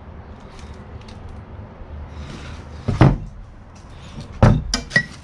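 Objects being handled inside a wooden trunk: soft rustling, a single sharp knock about three seconds in, then a quick run of knocks and clatters near the end as a metal-framed wall clock is set down among the contents.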